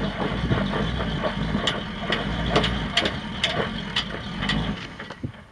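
Full-size Ford Bronco engine idling with a steady low note, with a run of sharp clicks, about two a second, through the middle; the engine sound drops away near the end.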